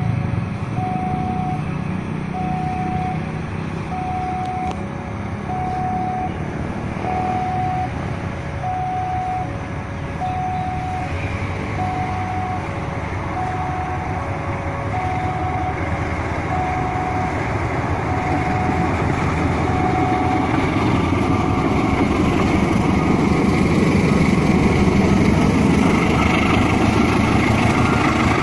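KAI diesel-electric locomotive hauling a passenger train, approaching and coming past: its engine rumble and the wheels on the rails grow steadily louder over the second half. For most of the first two-thirds an electronic two-tone warning signal alternates high and low, about one tone a second, then stops.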